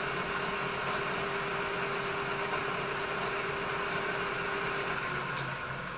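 1953 LeBlond Dual Drive lathe running with its chuck spinning: a steady mechanical hum carrying a steady whine, which drops out about five seconds in as the level sags a little.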